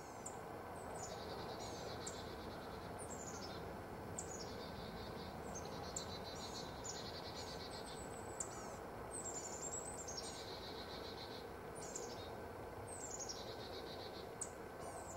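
Small songbirds singing: repeated high phrases, each a quick downward slide into a short buzzy trill, about one every second or two, over a faint steady background hiss.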